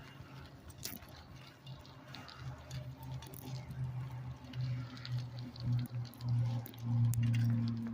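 Light clicking and rattling from a bicycle being ridden, under a low steady hum that swells louder over the last few seconds.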